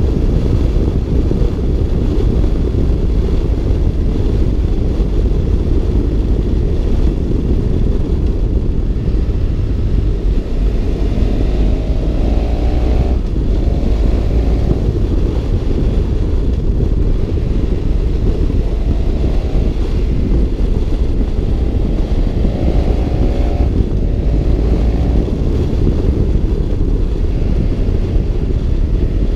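BMW F650 GS Twin's parallel-twin engine running under way, with heavy wind rumble on the microphone. The engine pitch climbs twice and drops suddenly, about 13 seconds in and again near 24 seconds, as with upshifts.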